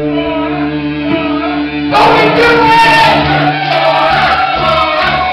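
Live rock band playing amplified: held notes ring for about two seconds, then the full band comes in loudly with drums and crashing cymbals.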